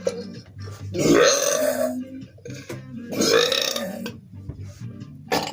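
A man belching twice, each burp lasting about a second, from drinking Coca-Cola.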